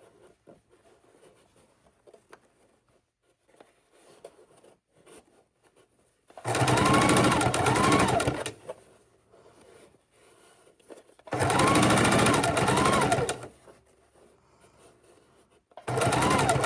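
Sewing machine stitching in three short bursts of about two seconds each: about six seconds in, about eleven seconds in, and again near the end. Its motor pitch rises and falls within each burst. Faint clicks come between the bursts.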